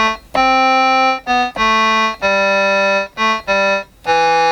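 Yamaha PortaSound PSS-30 keyboard played one note at a time: a simple tune of about seven notes, each held as a steady tone that stops cleanly when the key is let go. The keyboard has just been repaired, its previously dead keys sounding again.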